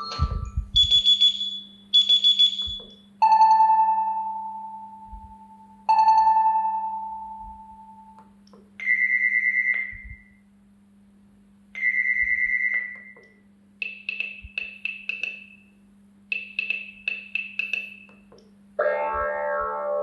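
Gigaset CL390 cordless phone ringtones playing one after another. First a fast trilling beep, then a long fading tone, a shorter higher tone and quick pulsed beeps, each sounding twice; a fuller multi-note tone starts near the end. A faint steady low hum runs underneath.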